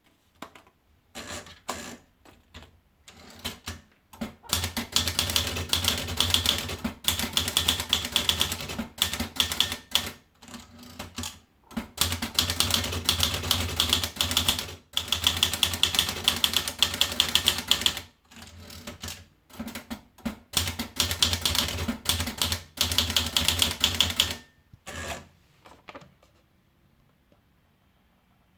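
Olivetti Dora manual portable typewriter being typed on: a few scattered key strikes, then rapid runs of typing lasting a few seconds each, broken by short pauses.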